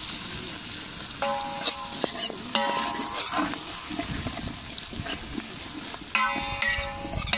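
Shallots, tomatoes, garlic and curry leaves sizzling in hot oil in an aluminium pot as a steel ladle stirs and scrapes through them. Three brief squealing tones ring out, about a second in, around two and a half seconds in, and near the end.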